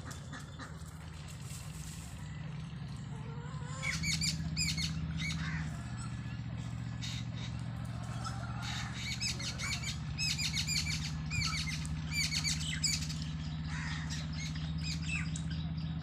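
Small birds chirping in quick, short, high calls, thick from about four seconds in, over a steady low hum.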